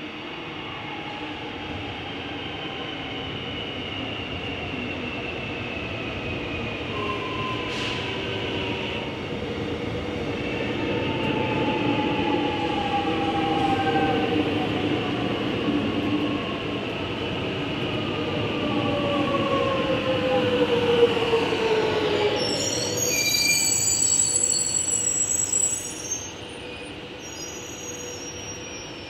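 Alstom X'Trapolis 100 electric train slowing: its traction motor whine falls steadily in pitch as the sound grows louder, and high-pitched wheel squeal rings out for a few seconds near the end before the sound drops away.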